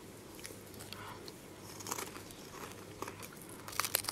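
Snack packet crinkling faintly, then a crunchy bite into a fish-shaped wafer snack near the end, with a few sharp crunches.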